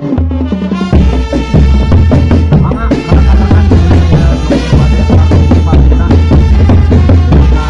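Loud drum band music: drums and percussion over a melody with a steady low bass.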